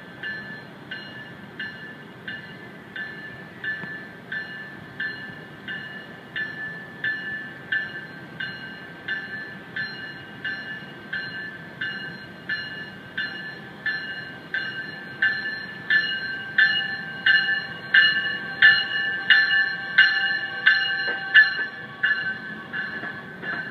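A warning bell ringing steadily, about one and a half strikes a second, getting louder about two-thirds of the way in, over the low rumble of a bilevel commuter train moving along the platform.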